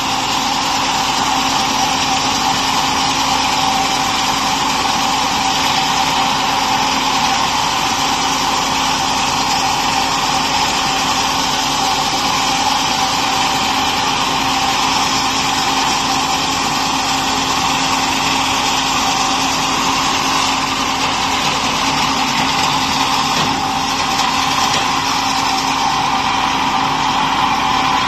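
Multi-blade rip saw (gang saw) running steadily and ripping boards fed through its roller feed: a loud, even machine noise with a steady hum and whine that does not change.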